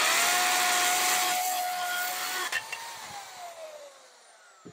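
DeWalt DWD520 corded hammer drill hammer-drilling into a concrete block with a 3/8-inch masonry bit: rough hammering noise over a steady motor whine. About two and a half seconds in there is a knock and the whine rises briefly, then the trigger is released and the motor coasts down with a falling whine that fades away.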